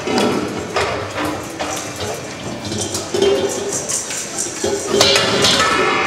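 Stainless steel dog bowl clanking, scraping and ringing as puppies push and nose it around on a plastic floor grate, a run of quick knocks with ringing tones late on.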